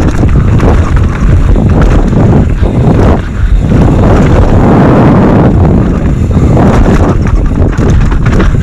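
Loud wind buffeting an action camera's microphone at speed, mixed with the constant rattle and clatter of a downhill mountain bike running over rocky dirt trail.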